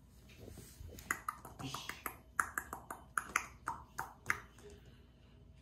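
A cockatiel inside a plush tent makes an irregular run of sharp clicks and short chirp-like notes for about three seconds, then goes quiet.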